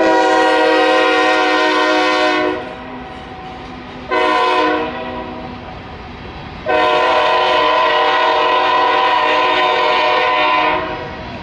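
Diesel freight locomotive's multi-note air horn sounding three blasts: a long one already sounding that cuts off about two and a half seconds in, a short one about four seconds in, and another long one from about seven seconds until near the end. The passing train's rolling noise fills the gaps between blasts.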